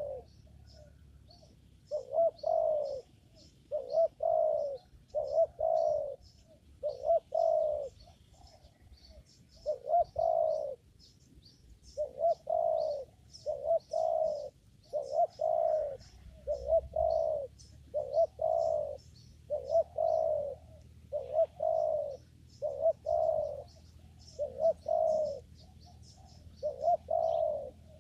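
Spotted dove cooing over and over, low coo notes coming about every second and a half with short pauses between runs. Faint high chirping of small birds runs behind it.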